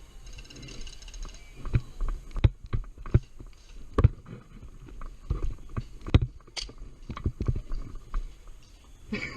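Irregular knocks and thumps with rustling, several sharp ones close together, starting about a second and a half in.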